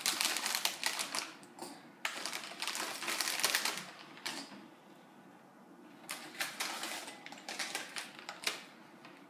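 Plastic snack bag crinkling as it is handled and tipped, with small hard snack pieces clicking as they drop into a bowl. Rapid crackling comes in runs, with a quieter stretch around the middle.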